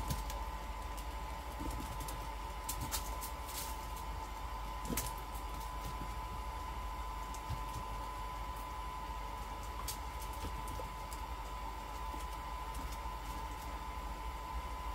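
A bubble machine's small fan motor running steadily, a constant whirr with a thin high whine. A few short, sharp clicks sound over it.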